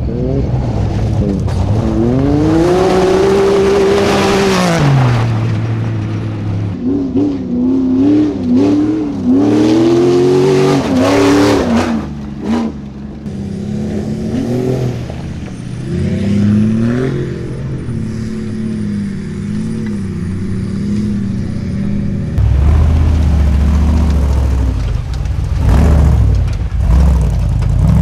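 Off-road race car engines revving hard and easing off again and again, with the pitch swinging up and down as the vehicles work through mud. About three-quarters of the way through, a deeper, heavier engine rumble takes over.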